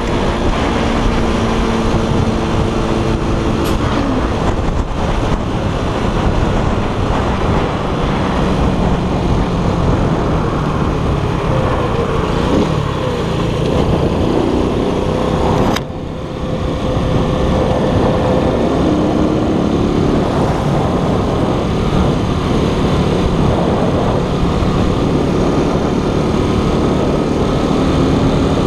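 Keller Crono 110 scooter's engine running under way, with a dense rush of wind noise over it. About halfway the engine pitch falls as it slows for a turn, the sound dips briefly, then the pitch climbs again as it pulls away.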